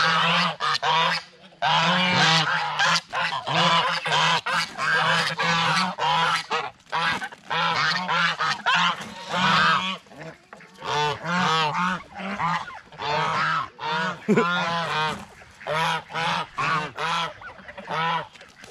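A flock of domestic geese honking, many loud overlapping honks in quick succession with a few brief lulls.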